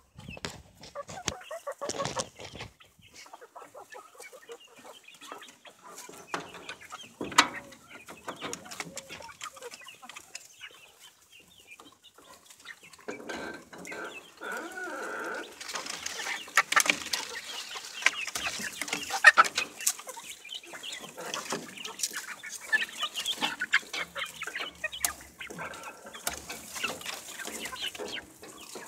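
A flock of chickens clucking close up, with many short knocks among the calls; the clucking grows busier and louder from about halfway through.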